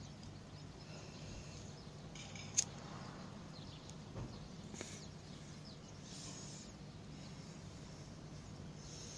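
Faint outdoor ambience with a low steady hum and scattered high bird chirps, one sharper chirp about two and a half seconds in.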